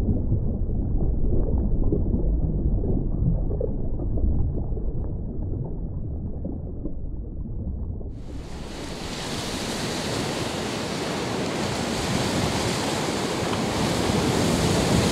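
A deep, muffled rumble for about the first eight seconds, then a sudden change to open, full-range noise of wind buffeting the microphone over choppy sea and surf.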